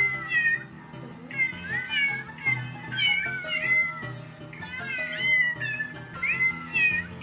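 A musical greeting card playing a song made of recorded cat meows over a backing tune. The meows rise and fall and come in a regular rhythm.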